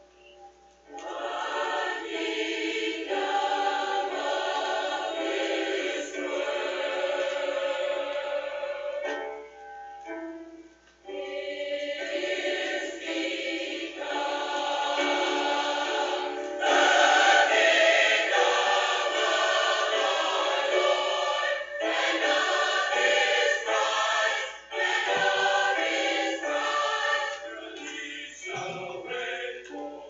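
A choir singing. The voices come in about a second in, break off briefly about ten seconds in, then return and swell louder.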